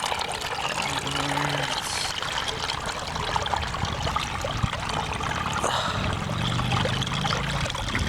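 Water running steadily through a small pond dam's pipe intake, trickling and splashing.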